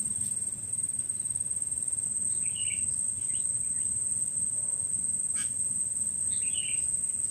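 Insects, crickets, trilling in a continuous high-pitched drone, with two faint short chirps and a single faint click partway through.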